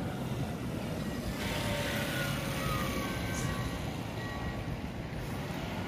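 Steady rumble of road traffic, with the faint falling engine note of a passing vehicle about two to three seconds in.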